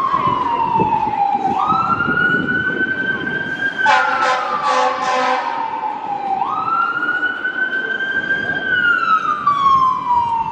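Emergency vehicle siren wailing: each cycle jumps up in pitch, holds and then falls slowly, repeating about every five seconds. A short harsh blast breaks in about four seconds in.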